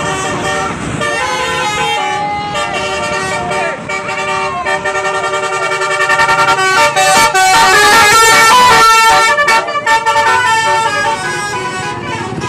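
Bus 'telolet' basuri horn playing a melody: several horn tones sound together and step from note to note, loudest in the middle of the tune.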